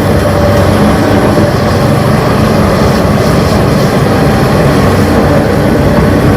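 Radio-controlled model Hitachi excavator running: a loud, steady mechanical drone with a low hum that does not let up.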